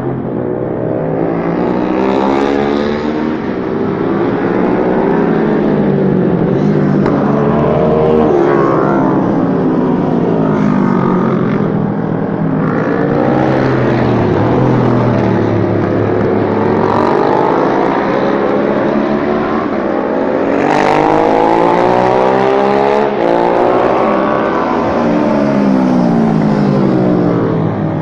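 Several racing motorcycle engines revving hard and overlapping, each note climbing in pitch and dropping back at every gear change as the bikes accelerate and brake around the circuit.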